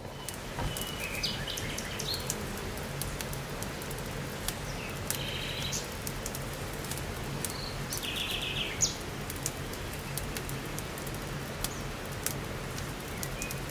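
Wood campfire crackling with many sharp pops, one louder pop about nine seconds in. Birds chirp in short trills a few times.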